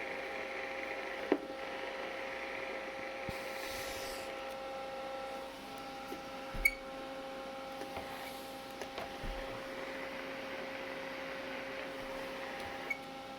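Faint steady electrical hum and whine from bench electronics, several steady tones held under a light hiss, with a few soft clicks and knocks.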